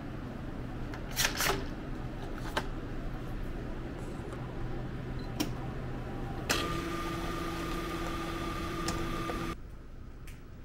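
Self-serve coffee dispenser: a few sharp clicks as its buttons are pressed, then the machine runs with a steady hum and hiss for about three seconds before stopping.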